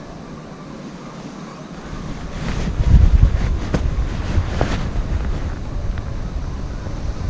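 Wind buffeting the microphone, with a low rumble that swells a couple of seconds in and a few short, sharp snaps in the middle.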